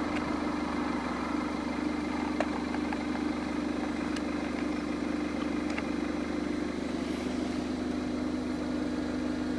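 Steady engine and road noise inside a car cruising at an even speed, a constant low drone with a steady hum and a few faint ticks.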